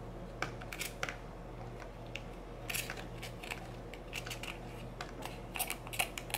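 A thin knife scraping and clicking against a used aluminium Nespresso capsule as it cuts away the foil lid and works out the spent coffee grounds. Short, irregular scratches and ticks come in a few bunches.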